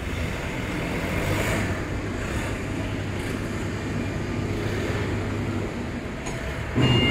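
Steady low rumble and hiss of an idling truck engine. Near the end a reversing beeper starts to sound.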